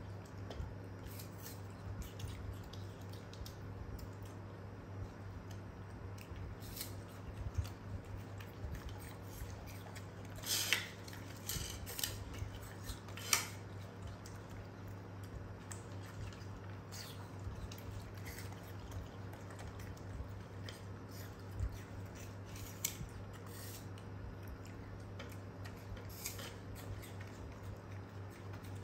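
Young monkeys eating apple pieces: scattered crisp bites and small clicks of chewing and handling, with a few louder clicks around the middle, over a steady low hum.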